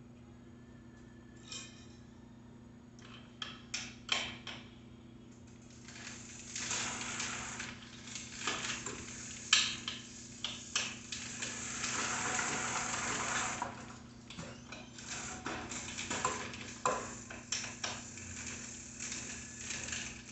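Small metallic clicks and clinks of hands and tools working on a mountain bike's handlebar and front end. Through the middle there is a longer stretch of hiss-like noise with more clicking mixed in.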